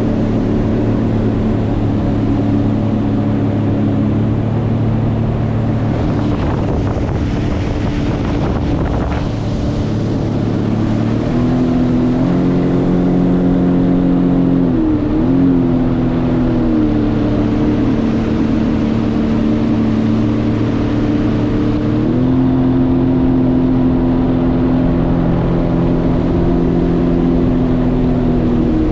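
Jet ski engine running steadily under way. Its note steps up and down a few times as the throttle changes, with a quick dip and recovery in the middle.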